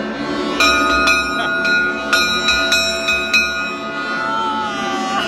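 Polished ship's bell on a yacht's deck, struck repeatedly for about three seconds, each strike ringing on. Steady boat horns sound underneath throughout.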